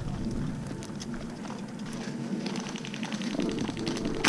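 Airsoft rifle firing on full auto, starting about two and a half seconds in: a rapid, even run of sharp clicks that carries on past the end.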